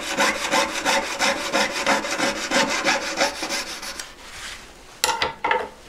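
Jeweller's piercing saw cutting through a silver ring shank in quick, even back-and-forth strokes, which stop about three and a half seconds in. A few light knocks follow near the end.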